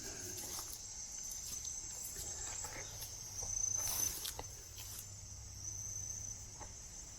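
Insects chirping in a steady high trill, with a few rustles and footsteps in the undergrowth, loudest about four seconds in.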